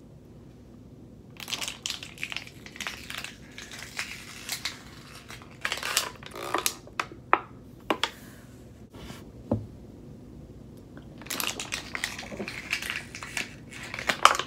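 Thin plastic water bottle crinkling and crackling as it is squeezed and handled, in two spells with a short pause between them.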